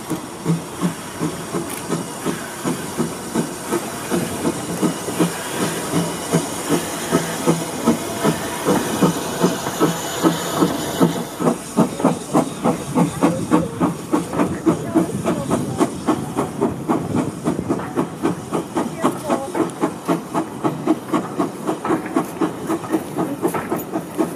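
Small tank steam locomotive working a train, its exhaust beating in regular chuffs about two a second over a steady hiss of steam.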